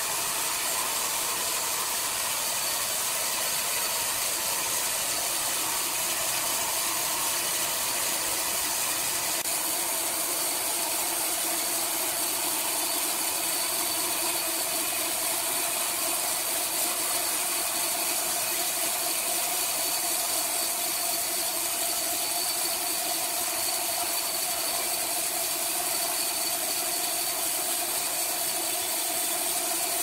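Horizontal band sawmill cutting lengthwise through a large log: a steady hiss of the band blade in the wood over the machine's running hum. A steady whine in the hum grows stronger about a third of the way in.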